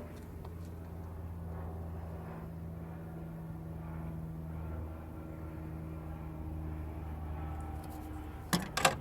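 Car engine idling steadily with an even low hum. A quick cluster of sharp clicks and knocks near the end is the loudest sound.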